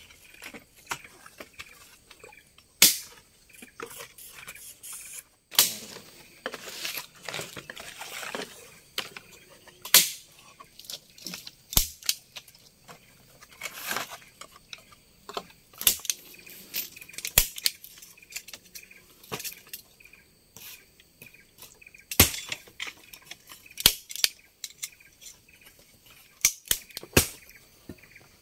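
Irregular sharp knocks and cracks from hands-on building work on a forest shelter of poles and pandan leaves, with a spell of leaf rustling about six seconds in.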